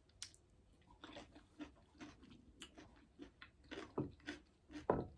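A person chewing sliced cucumber and tomato: a run of soft, irregular wet crunches and mouth clicks, a little louder near the end.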